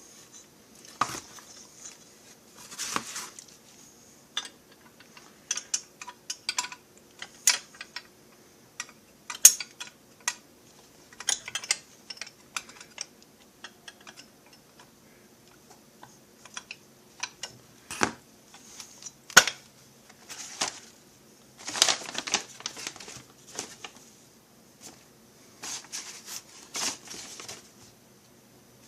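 Irregular sharp clicks and light knocks, some in quick clusters, from tools and small metal engine parts being picked up, set down and fitted on a workbench.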